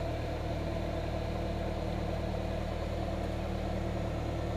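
Light single-engine propeller aircraft's piston engine running steadily, heard from inside the cockpit.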